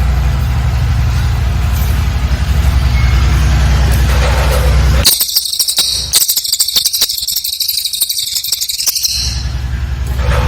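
A cililin bird sings one rapid, high-pitched trilling burst lasting about four seconds, starting about five seconds in. Before the burst, and again near the end, a loud steady low hum fills the recording.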